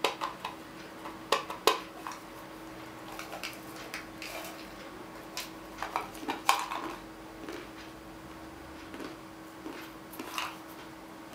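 Peanuts rattling and clicking against a metal can as it is handled and tipped up to the mouth. The sharp clicks come in clusters in the first two seconds and again around six seconds in, with scattered small ticks between them.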